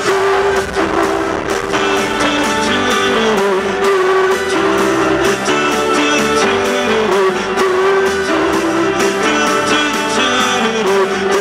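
Live rock band playing loud through a concert PA, recorded from the audience: electric guitar and bass, with singing on top.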